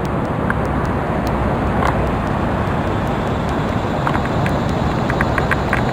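Road traffic going by close at hand: a steady rush of tyres and engines.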